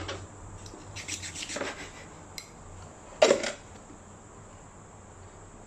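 Meat cleaver chopping a whole raw duck on a plastic cutting board. There is a quick run of knocks about a second in, a single light tap, then one loud chop a little past three seconds.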